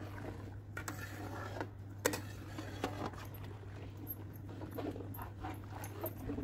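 A long-handled metal ladle stirring milk in a large aluminium kadhai, scraping the pan, with a few sharp metal clicks in the first three seconds.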